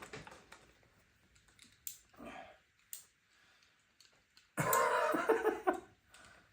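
Hand ratchet from a cheap socket set being worked: a few single clicks, then a dense run of rapid clicking near the end. The mechanism is rough, which the owner says feels like something is bound up in it.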